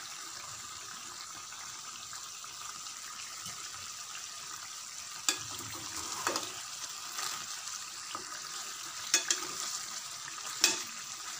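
Stuffed brinjals sizzling steadily in oil in a kadhai, the water boiled off and the oil separating from the masala. A steel ladle clicks sharply against the pan three times, about five, nine and ten and a half seconds in.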